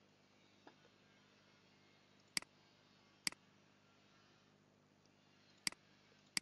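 Computer mouse button clicking: three or four short, sharp clicks a second or two apart, over faint steady hiss.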